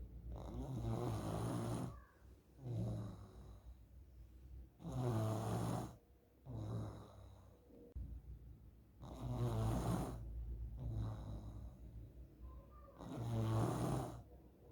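A child snoring in sleep: four loud rasping snores about four seconds apart, each followed by a softer breath. The uploader takes snoring like this to be one of the signs of nasal polyps.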